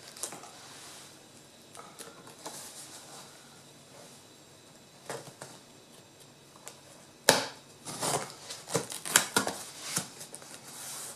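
Packing tape on a cardboard box being slit open along the lid seam with a pointed tool. A few faint clicks of handling come first. About seven seconds in there is a sharp crack, then a run of crackling and scraping as the firmly stuck tape is cut and torn.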